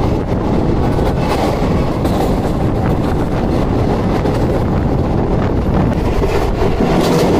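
Passenger train running at speed, heard from an open coach doorway: a steady, loud rumble and rattle of the wheels on the rails.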